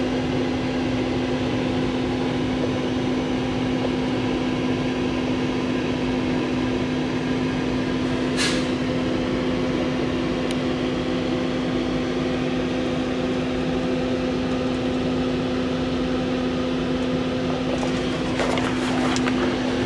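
Steady mechanical and electrical hum from a rail passenger car's electrical cabinet and ventilation: a constant pitched drone over an even rush of air. A single brief click about eight seconds in.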